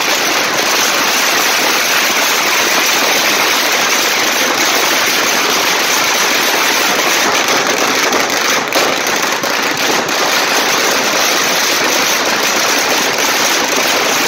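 Strings of Chinese firecrackers going off in a rapid, continuous crackle of small bangs.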